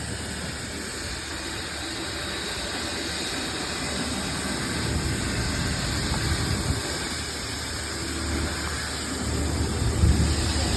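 Steady mechanical drone of a running engine, a dense low rumble that grows slightly louder toward the end.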